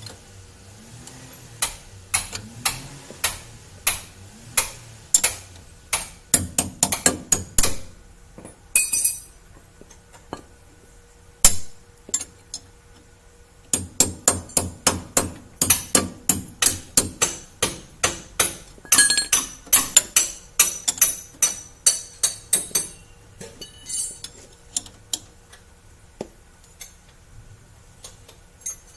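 Ratcheting wrench clicking in long runs of sharp metallic clicks, about two to three a second, as the nut on a new ball joint's stud is run down tight, with a pause of a few seconds in the middle.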